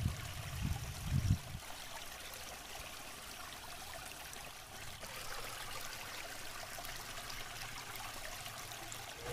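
River water running over rocks, a steady even rush, with a few low thuds in the first second and a half.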